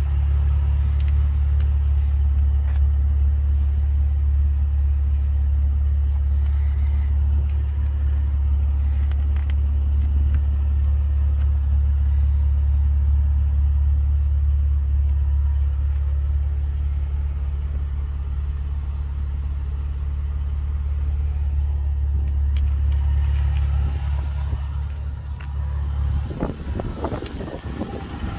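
Toyota FJ Cruiser's 4.0-litre V6 idling with a steady low drone. About two seconds before the end the drone drops away under a few knocks and handling noises.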